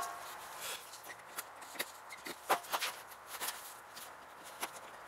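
Small scattered metal ticks and scrapes, about half a dozen at irregular intervals, as a small screwdriver pries at the stubborn retaining ring around a ratchet wrench's head.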